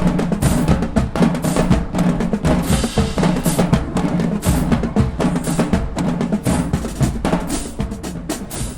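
Marching band drumline playing a fast cadence: snare drums, tenor drums and bass drums in dense rapid strokes, with some low held band notes underneath.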